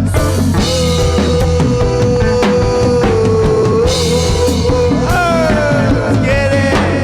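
Live reggae band playing, with drum kit and bass keeping a steady groove under a long held lead note.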